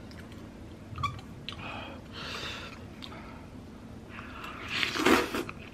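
Eating pasta: noodles slurped into the mouth, loudest in a rising slurp about five seconds in, with a few soft clicks of the metal fork and spoon before it.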